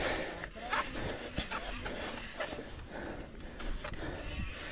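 Hardtail mountain bike on a fast descent of a dirt trail: its tyres crunch over dirt and stones, and its frame and chain rattle in irregular clicks and knocks over a steady rush of wind and rolling noise.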